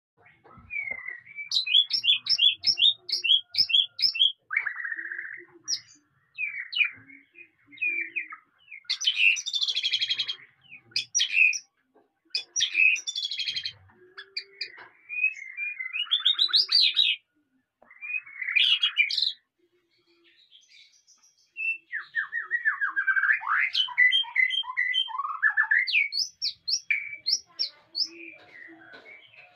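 White-rumped shama singing a long, varied song of clear whistled phrases, with quick runs of repeated notes and short pauses between phrases, and a longer pause about two-thirds of the way through.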